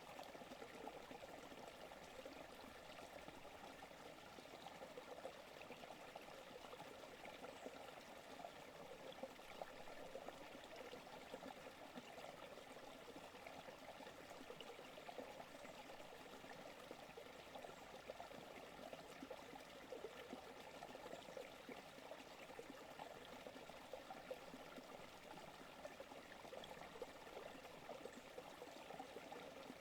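Forest creek flowing steadily: a faint, even babble and trickle of running water.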